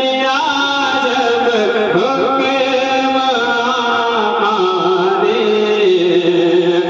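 A man singing a naat, a devotional Urdu poem in praise of the Prophet, solo into a microphone. He draws out long held notes with gliding, ornamented pitch.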